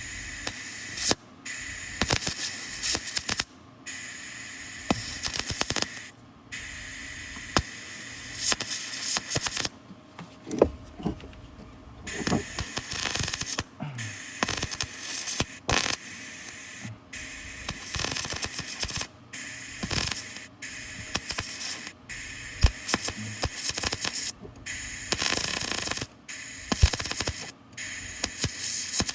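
Welding arc crackling and sputtering in repeated bursts of one to a few seconds, cut off by short pauses between welds, as a truck frame is welded.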